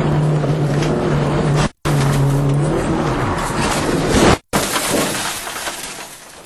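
Rally car crashing heard from inside the cabin: the engine runs steadily, then its note drops away about three seconds in. A rising rush of scraping and crunching with glass breaking follows as the car goes off and tumbles. It is loudest just after four seconds in and then dies down.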